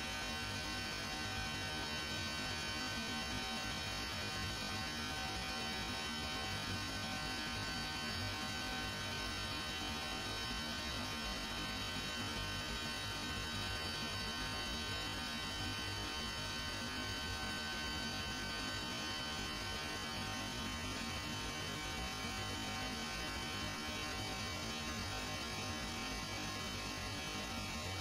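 Steady machinery hum of running water-cooled chiller plant equipment: a low rumble with several steady high tones held over it, unchanging throughout.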